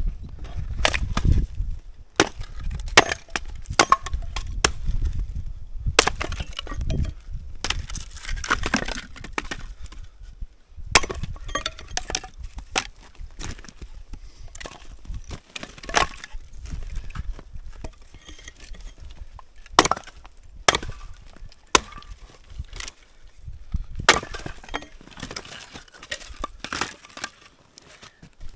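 Axe chopping and splitting old firewood rounds, the wood cracking and breaking apart. A long run of irregular sharp chops.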